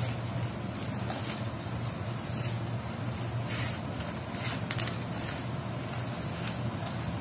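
Scissors cutting through stiff brown pattern paper: a handful of sharp snips with paper rustling, spread irregularly, over a steady low hum.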